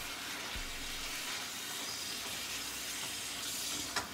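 Ground beef sizzling steadily in a skillet over high heat as it browns.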